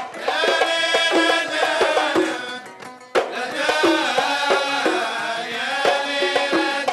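Kuwaiti sawt music: male voices singing over steady drum and percussion strokes. The music thins out and drops about two and a half seconds in, then comes back with a strong beat about three seconds in.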